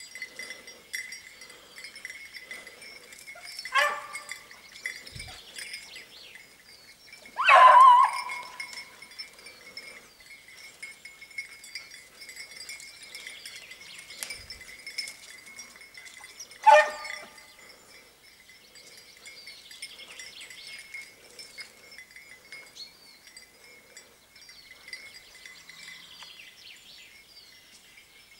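Beagle hound giving tongue on a hare trail: three bays, short ones about four and seventeen seconds in and a louder, longer one near eight seconds. A faint steady high chiming runs underneath.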